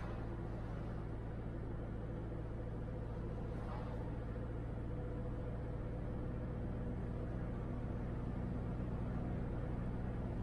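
A car driving, heard from inside the cabin: a steady low hum of engine and road noise that grows slightly louder near the end.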